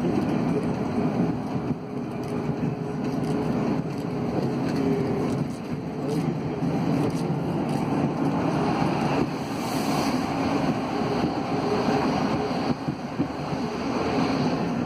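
Cabin running noise of an Alsthom NS 74 rubber-tyred metro train moving at speed: a steady rumble with a faint hum. From about eight seconds in, a train passing the other way on the next track adds a rushing hiss.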